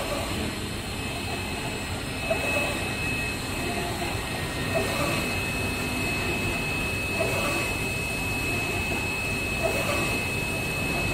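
UV flatbed inkjet printer running: a steady mechanical whir with a thin high whine over it, and a soft knock about every two and a half seconds as the print carriage sweeps back and forth over the bed.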